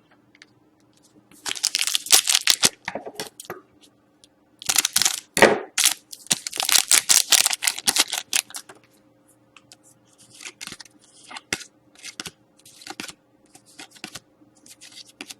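Hockey card pack and cards being handled: two long spells of crinkling, tearing packaging in the first half, then shorter scrapes and clicks of cards being slid and shuffled.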